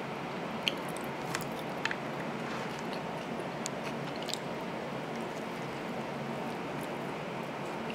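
A person chewing and biting into a hamburger close to the microphone: a few short wet mouth clicks, mostly in the first half, over a steady background hiss.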